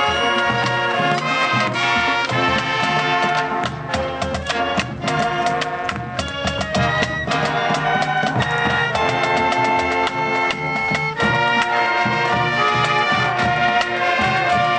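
High school marching band playing in full, with brass chords and melody over drums and front-ensemble percussion. Sharp accented hits punctuate the music, with a dense run of them about four to six seconds in.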